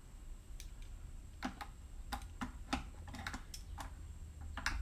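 Light, irregular clicks and taps from the RC truck and a measuring tool being handled while the ride height is checked, over a steady low hum.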